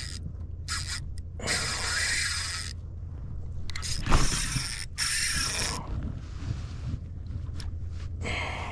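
Fishing reel's gears and ratchet whirring in several short bursts of about a second each, over a steady low rumble of water. A thump sounds about four seconds in.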